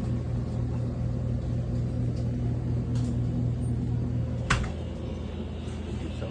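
Steady low rumble and hum, like a car interior with the engine running. A sharp click comes about four and a half seconds in, after which the hum drops.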